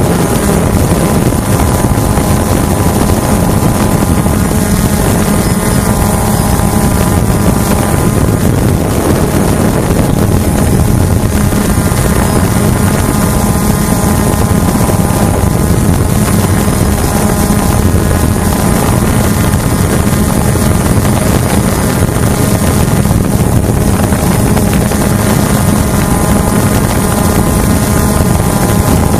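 Hubsan H109S quadcopter's motors and propellers droning steadily as it hovers, picked up close by its onboard camera microphone, with wind noise across the mic.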